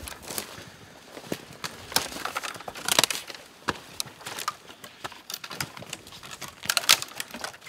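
Footsteps over deadfall: boots stepping on fallen logs and dry sticks that crack and snap underfoot in an irregular patter, with the sharpest cracks about three seconds in and again near the end.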